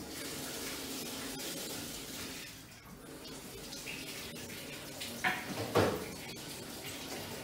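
Faint, steady fizzing of water in a self-heating hot pot as its heating pack begins to react, with a couple of brief louder noises about five to six seconds in.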